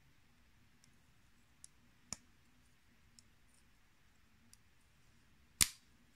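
Small plastic-and-metal clicks from a small electrical component being handled and fitted together in the fingers. There are a few faint ticks, a sharper click about two seconds in, and a loud, sharp snap about five and a half seconds in.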